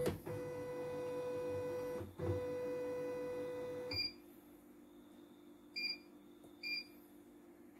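CNY E900 embroidery machine's embroidery-unit motors whirring as they drive the hoop, a steady whine in two runs of about two seconds each with a short break between. Then three short electronic beeps from the control panel keys, spaced about a second or two apart.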